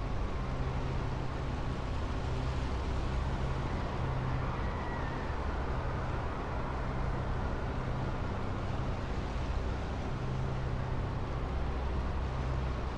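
Steady outdoor ambient noise: a low, uneven rumble with a hiss over it, unchanging through the stretch.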